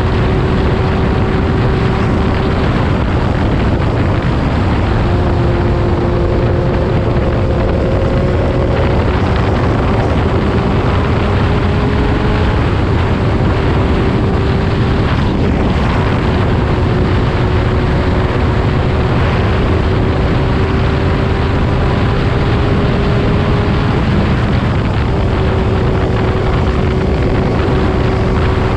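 Heavy wind blast on an action camera's microphone while a Triumph Daytona 675R's 675 cc three-cylinder engine with a Yoshimura full exhaust runs at steady cruising speed. A faint engine drone lies under the wind and steps up or down in pitch several times as the revs change.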